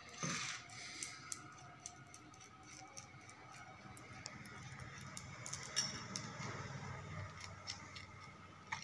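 Faint, scattered metal clinks and clicks of a 12 mm steel bolt, nut and washer being handled and fitted together by hand.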